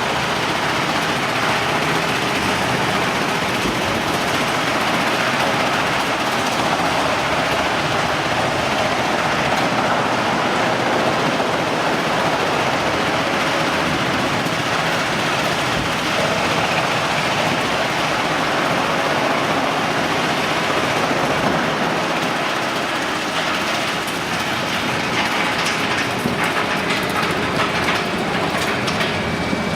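Wood chipper running with a loud, steady, dense mechanical rattle, with sharper clicks and knocks near the end.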